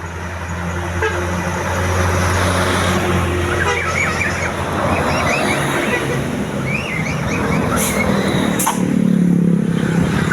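Bus engine running as it passes, the level building over the first couple of seconds and swelling again near the end.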